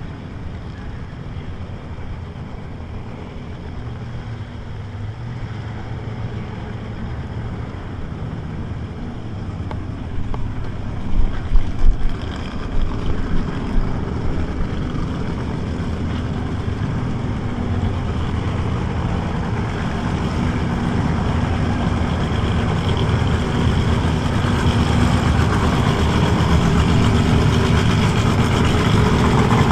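A motor vehicle engine running steadily, growing gradually louder, with a few loud knocks about ten to twelve seconds in.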